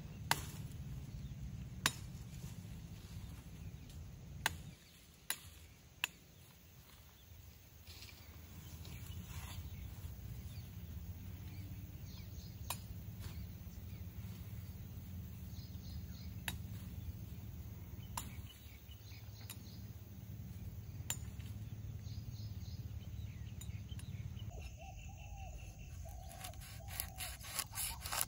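Sharp, isolated knocks of a large knife hacking at a green branch, one stroke every second or few, over a steady low outdoor rumble. Near the end come quicker taps of a knife on a wooden cutting board.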